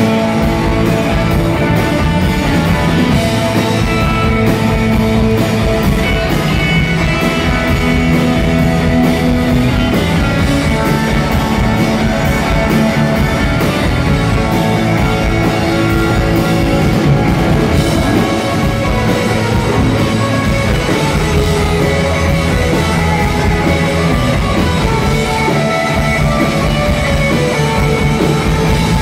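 Live rock band playing an instrumental passage, with electric guitar to the fore over bass, drums and keyboard, loud and continuous.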